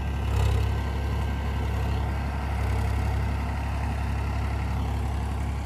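Powertrac Euro 50 tractor's three-cylinder diesel engine running steadily under load while it pulls a rotavator (rotary tiller) through the field soil. The sound is a low, even engine drone with a rougher noise over it.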